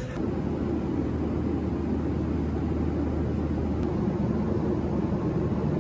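Airliner cabin noise: a steady low drone of the engines with a constant low hum underneath.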